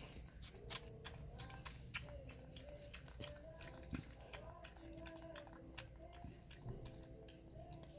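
Puppy lapping milk from a plastic bowl: quick, irregular wet clicks of the tongue, faint throughout.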